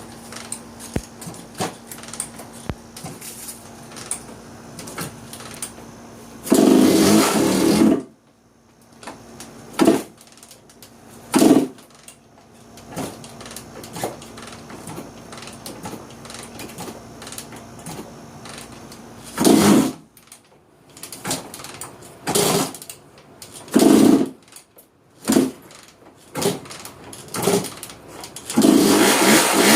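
Honda CR125 two-stroke engine firing in short bursts of a second or so, about eight times, dropping back between them, then catching and running continuously near the end. It runs badly with an odd knock after a needle bearing failure.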